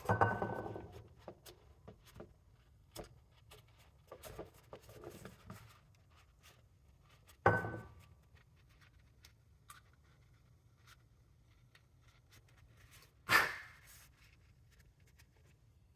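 Small tools and parts being handled on a workbench: scattered light clicks and rubbing, with three louder knocks, one at the start, one about seven and a half seconds in and one about thirteen seconds in. The first two ring briefly.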